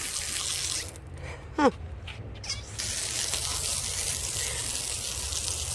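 Water spraying in a steady hiss that stops about a second in and starts again about two seconds later, over a low steady engine hum. In the pause a person gives a short falling "ooh".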